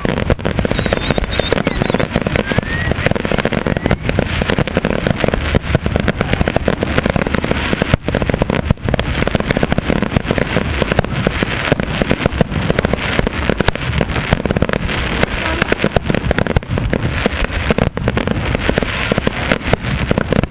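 Fireworks display going off in a dense, continuous barrage of bangs and crackle, with no let-up.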